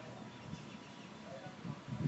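Quiet outdoor background noise with a few faint bird calls.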